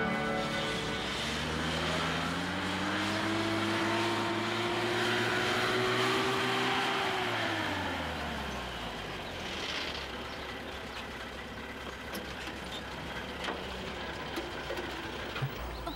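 Old army truck's engine accelerating, its note climbing steadily for several seconds and then dropping quickly as it slows. After that a low rumble with scattered clicks and knocks near the end.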